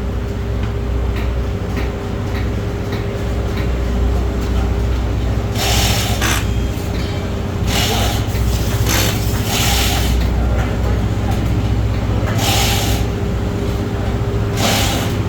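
Pneumatic tools on a drag-racing car's teardown, run in about six short bursts, each a hissing rattle of under a second, over a steady low hum.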